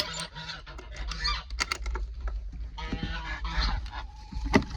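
Domestic geese honking repeatedly in short rough calls, with a few sharp knocks, the loudest near the end.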